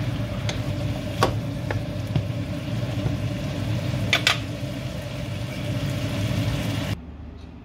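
Octopus stir-fry sizzling in a non-stick frying pan over a steady low hum. A few clicks of the wooden spatula against the pan come in the first two seconds, and a louder knock about four seconds in. The sound cuts off suddenly about seven seconds in.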